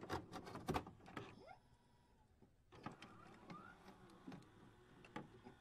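Faint glitchy sound effects for a loading-screen animation: a quick run of sharp clicks in the first second, then sparse soft ticks and a few short rising chirps.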